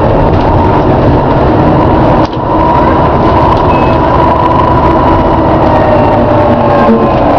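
Volvo B7TL bus running, loud and steady, with a drawn-out groaning tone carried through the noise and a brief dip about two seconds in.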